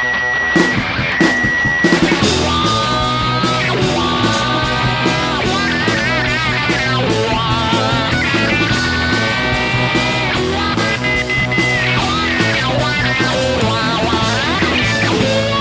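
Rock music with guitar: a steady beat under a bending, sustained lead guitar line.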